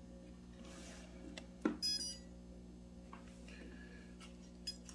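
A sharp click, then a short high electronic beep about two seconds in and another brief one near the end, over a steady low electrical hum.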